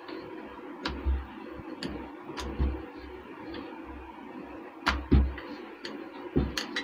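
Wooden rolling pin rolling out a roti of spinach dough on a countertop: repeated soft low knocks, about two a second, with a few sharper clicks among them.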